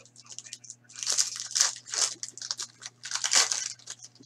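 Hockey card pack wrapper crinkling and tearing as it is pulled open by hand, in a run of crackly bursts that are loudest about a second, two seconds and three and a half seconds in.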